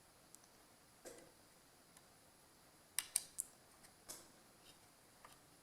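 A few faint, sharp clicks and taps of small hand tools working on a circuit board during soldering, with a quick cluster of three about three seconds in.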